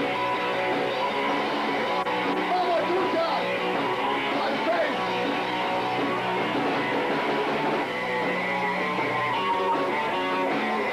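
Punk band playing a song live, guitar to the fore, loud and without a break.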